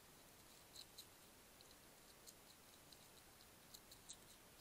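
Faint, irregular crisp clicks of a European hedgehog crunching dry kitten biscuits, a few clicks a second, over a steady hiss.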